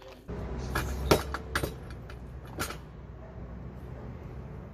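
Low steady rumble of a motor vehicle, starting just after the beginning, with a few sharp clicks in the first three seconds.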